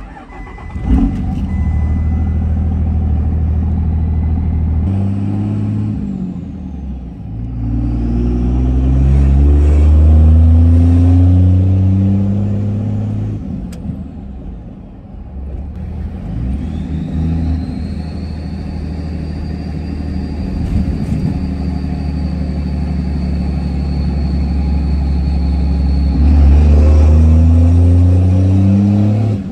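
A 2nd-gen Cummins 5.9 diesel with a Fleece Cheetah turbo starts about a second in and then idles, heard from the cab with the windows down. It is revved up and back down, then held up for a longer second rev. Each time the turbo spools with a loud, high whistle that climbs and then holds steady.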